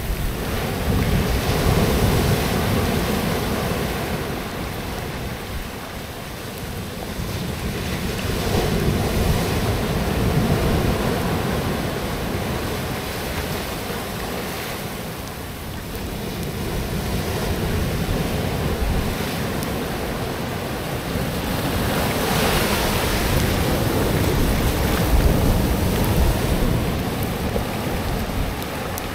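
Ocean surf washing up onto the beach, swelling and fading in slow surges every eight seconds or so, with a low rumble of wind on the microphone.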